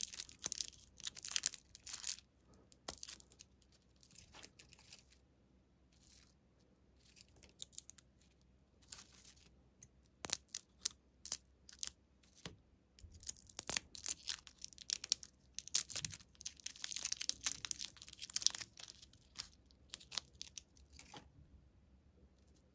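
Crinkly plastic candy wrappers rustling and tearing as lollipops are unwrapped by hand. The crackling comes in bursts with quieter pauses between, and a few sharp ticks.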